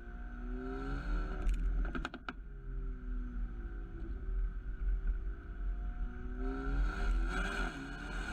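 Mercedes-AMG A35's turbocharged 2.0-litre four-cylinder engine and exhaust while driving. The revs climb, then a quick cluster of sharp exhaust cracks comes as they drop, about one and a half to two seconds in. Near the end the engine revs up again and gets louder under acceleration.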